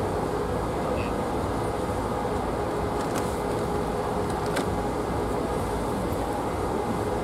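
Steady mechanical rumble with a constant low hum running under it, and two faint ticks midway.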